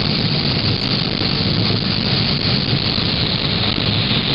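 Combine harvester running steadily under load while harvesting corn: an even mechanical drone and rush.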